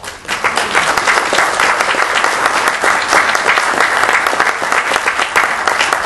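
Audience applauding loudly, many hands clapping at once, starting abruptly.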